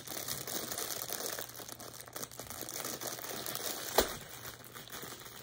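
Clear plastic bags around fidget toys crinkling and rustling as they are handled, with one sharp tap about four seconds in.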